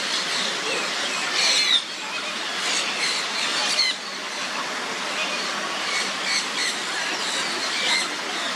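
Birds giving short, high squeaky calls several times over a steady hiss of background noise.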